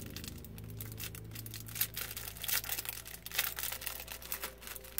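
Crinkly plastic packaging being handled, a noisy run of irregular crackles and rustles that grows busier toward the end.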